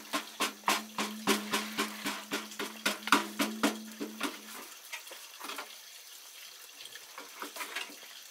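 A utensil scraping and knocking against a tilted basin as its contents are scooped out into a cooking pot, about three sharp strokes a second. The strokes stop about halfway through, and a few softer ones come back near the end.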